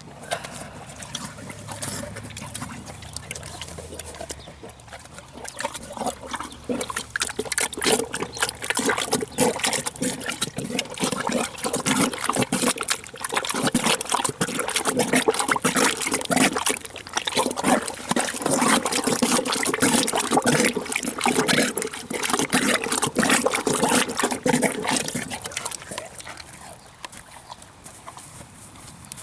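Horse eating soaked hay stew: rapid wet chewing and smacking, busiest through the middle and easing off near the end.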